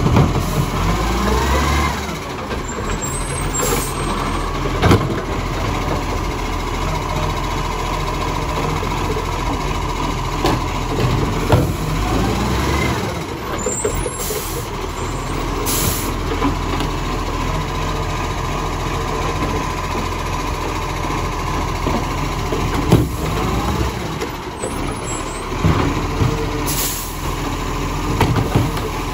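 Automated side-loader garbage truck collecting wheelie bins: its diesel engine runs steadily and revs up twice as the hydraulic lifting arm works, with sharp knocks of bins being tipped into the hopper and brief air-brake hisses as it moves along.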